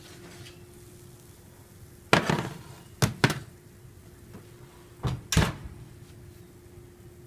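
Kitchen clatter: sharp knocks and clunks, five in all. There is one about two seconds in with a short ringing tail, a quick pair about a second later, and another pair around five seconds in, over a faint steady hum.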